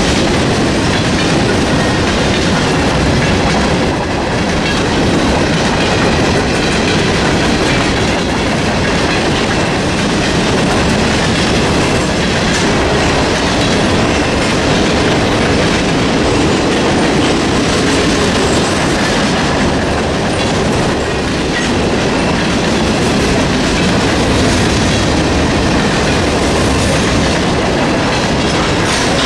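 Freight train of covered grain hopper cars rolling past: a loud, steady rumble with the clickety-clack of wheels over the rail joints. The crossing's General Signals Type-2 electronic bells ring throughout while the gates are down.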